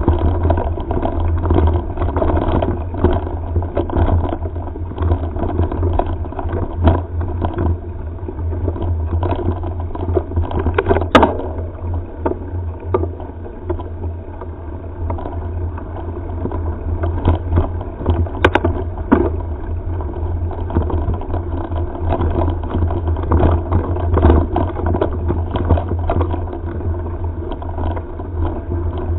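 Mountain-bike riding noise picked up by a head-mounted camera: a steady low rumble of wind and tyres on a gravel track, with frequent rattles and knocks from the ride. Two sharp clicks stand out, about a third and about two thirds of the way through.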